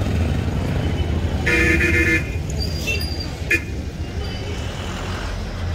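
Street traffic rumble with a vehicle horn honking once, for under a second, about a second and a half in, and a short sharp click a couple of seconds later.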